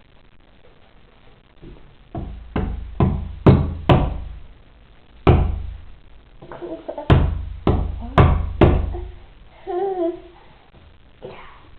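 A baby banging on a hard surface: about ten irregular knocks, each with a dull thud, in two runs with a single knock between them. Short baby babbles come between and after the knocks.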